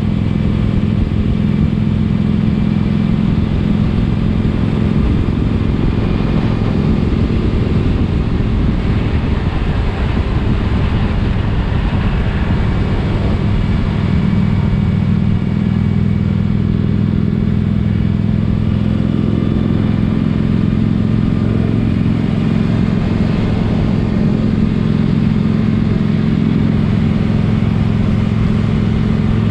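Motorcycle engine running steadily at cruising speed while riding, its pitch nearly constant throughout, under a steady rush of wind and road noise.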